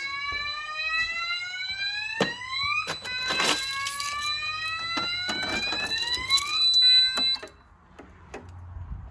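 Fire alarm system going into alarm, set off by a heat detector: an electronic sounder sweeping upward in pitch, each sweep about three seconds long, over a steady high tone. Both cut off about seven and a half seconds in.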